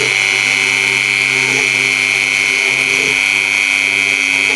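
Mini CNC router spindle running steadily with a high-pitched whine while milling out areas of a wooden logo, with fainter lower tones that shift every second or so.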